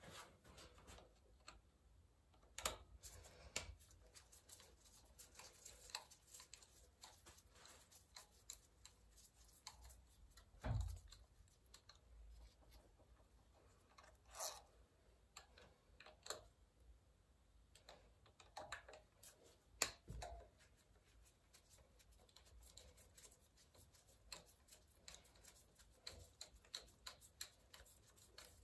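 Faint, scattered clicks and knocks of hand tools and small parts being handled while an engine is dismantled, with near silence between them; the loudest knocks come about 11 and 20 seconds in.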